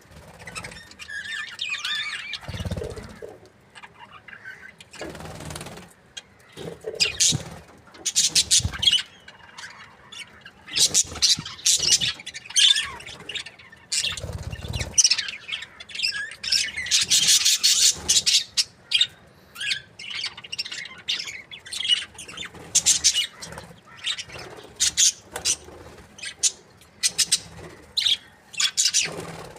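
A group of budgerigars chirping and squawking in rapid, overlapping bursts, with a few dull thumps.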